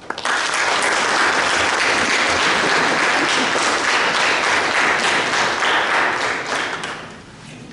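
Audience applauding. It starts all at once, holds steady and loud, then dies away about a second before the end.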